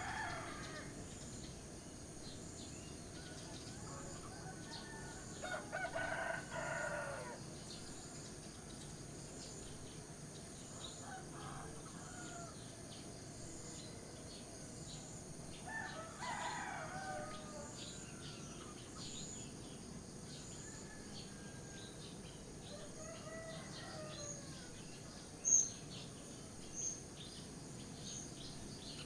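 Roosters crowing again and again, one call every five or six seconds, some louder and some fainter. Under them runs a steady hiss of wind through grass, with small birds chirping. Two sharp high chirps near the end are the loudest moments.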